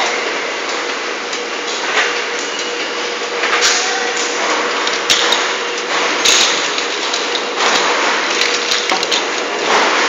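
Production-line noise in a solar water heater factory: a steady mechanical din with a faint constant hum, broken by irregular knocks and clanks about every second or so, as a heater tank rides along a roller conveyor.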